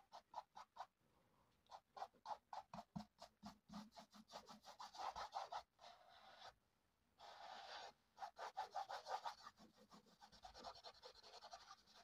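Faint scratchy strokes of a paintbrush working oil paint onto canvas: a quick run of short dabs, about three a second, with a few longer drags in between.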